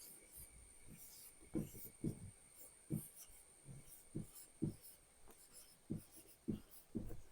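Faint handwriting: a series of about eight short, separate strokes of a pen or marker, spread over several seconds.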